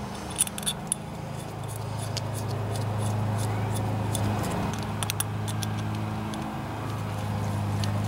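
A few light metal clicks as the carburetor's main jet and emulsion tube are handled and threaded back in during reassembly, over a steady low hum.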